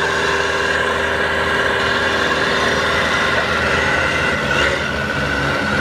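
Big-block 460 V8 of a Ford mud truck running loud and steady under load as the truck pulls against a log skidder.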